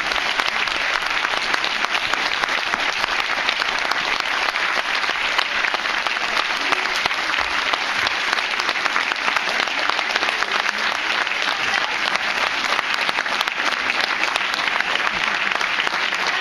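Audience applauding steadily: a dense, even run of many hand claps.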